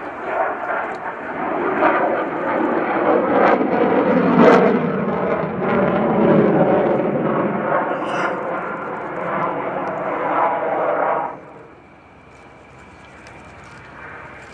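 F-16 fighter jet flying overhead, a loud rushing jet roar with a crackling edge that drops away suddenly about eleven seconds in, leaving a much quieter background.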